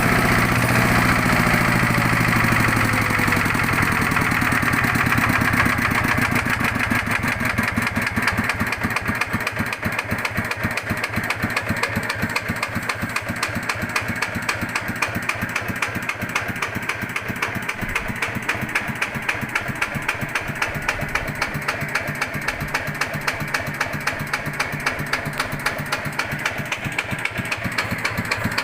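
Yanmar TF105 single-cylinder diesel engine settling over the first few seconds into a very slow idle, each firing beat heard separately as a regular 'tok tok tok' knock, the engine running on without stalling. The owner is unsure whether this knocking at such low revs is normal.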